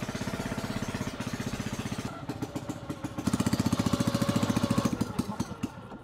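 Small boat engine running with a rapid, even putter, growing louder about three seconds in and then dropping away near the end.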